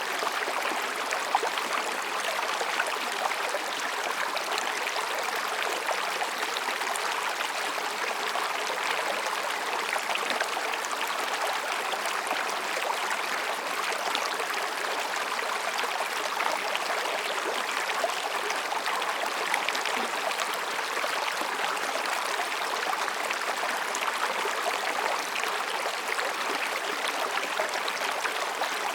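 Mountain stream running over and between rocks: a steady, even rush of water with small splashes and gurgles.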